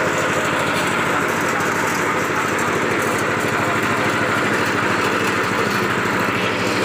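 KD 500 WG mini rice mill (huller) running steadily under a load of paddy, with a fast, even mechanical pulse beneath a dense grinding noise.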